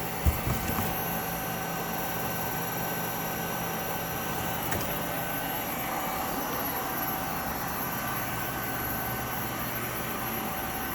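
Clausing Colchester 13 x 30 engine lathe running steadily at low spindle speed, a steady mechanical hum with a faint constant whine. A couple of brief knocks come right at the start.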